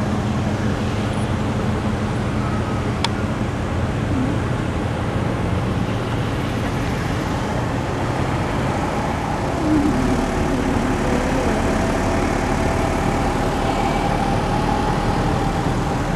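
Steady car and traffic rumble heard from inside a vehicle creeping along in heavy traffic: engine and tyre noise, with the noise of the surrounding cars.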